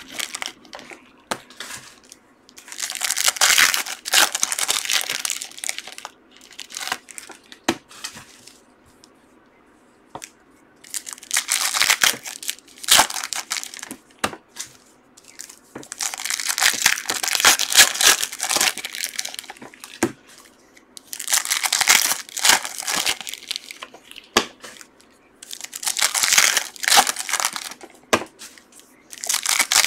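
Foil trading-card pack wrappers being torn open and crinkled by hand, in about five bouts of loud rustling a few seconds apart, with quieter handling clicks between them.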